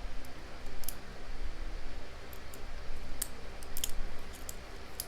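A lock pick and tension tool clicking and scraping in a padlock's keyway at the start of picking: a handful of short sharp ticks, scattered irregularly over a low steady hum.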